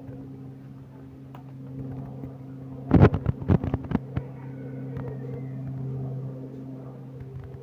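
A steady low mechanical hum from a running motor, with a quick run of sharp clattering knocks about three seconds in.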